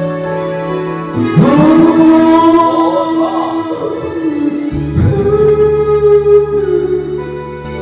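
A slow Korean ballad sung to a karaoke backing track of sustained chords. The voice comes in about a second in, breaks off briefly, and comes back for a second phrase.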